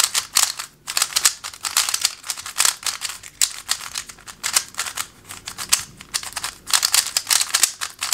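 Moyu RS3 M MagLev magnetic 3x3 speed cube being turned quickly by hand, a fast, uneven run of plastic clicks and scrapes as the layers move. The stock cube turns with a sandy, gritty feel that can be heard, and its magnets click the layers into place.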